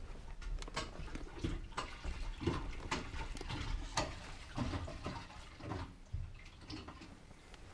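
Fuel sloshing and gurgling inside a BMW E38's fuel tank, an irregular run of wet splashes and drips.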